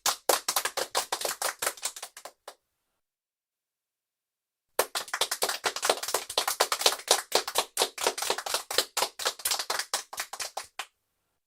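Applause from a small group of a few people: a round of clapping that thins out and stops about two and a half seconds in, then after a short pause a second round starts about five seconds in and runs about six seconds before cutting off.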